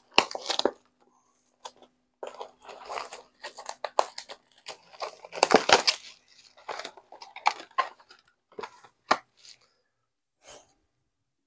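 A trading card pack's wrapper being torn open and crinkled, in several bursts over the first six seconds, then a few scattered clicks.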